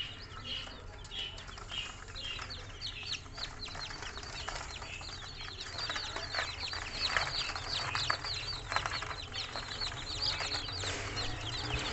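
A brood of newly hatched bantam chicks peeping together: many short, high, falling peeps that overlap, growing busier from about three seconds in.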